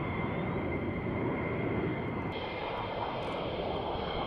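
Fighter jet engines running at landing-approach power as the jet comes down onto the runway: a steady jet roar with a high whine, and a second, higher whine joining about two seconds in.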